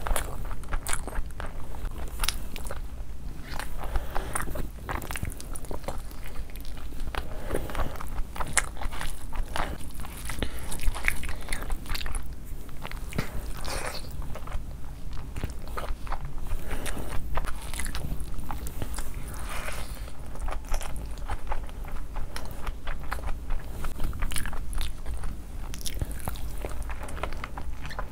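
Close-miked chewing and biting of a person eating fried rice and chicken by hand, with many short mouth clicks all the way through.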